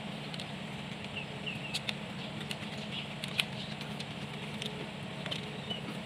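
Scattered light clicks and taps over a steady low hum, with a few short high chirps, like small birds, about a second in and near the end.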